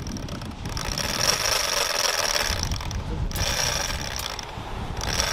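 Large conventional big-game reel's drag paying out line as a hooked shark runs, a steady high-pitched whine that breaks off briefly twice in the second half.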